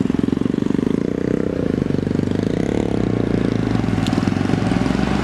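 Diesel engine of a JCB earthmover running steadily as it works mud, a rapid even chugging.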